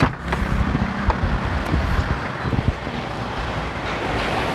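Steady rushing noise of wind and vehicle sound, starting abruptly, with a low steady hum in the first second and a few faint knocks.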